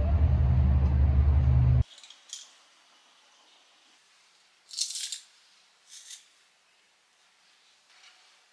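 A low rumble that cuts off abruptly about two seconds in, then a few short metallic squeaks and clicks of a hand-held garlic press crushing garlic cloves, the loudest about five seconds in.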